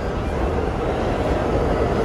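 New York City subway train running in the station, a steady rumble.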